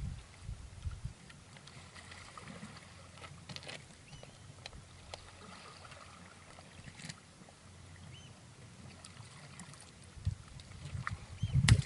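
Sea water lapping at the shore, with scattered small clicks and rustles as a freshly caught fish and the lure rod are handled; a louder knock and low rumble of handling noise near the end.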